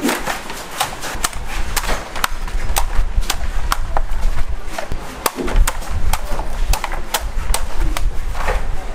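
A blade chopping at coconuts: a quick, uneven series of sharp strikes, about two a second, over a low steady rumble.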